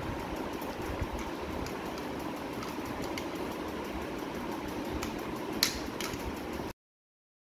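Small battery-powered toy car's electric motor whirring steadily, with a couple of sharp clicks near the end as it is handled; the sound cuts off suddenly about a second before the end.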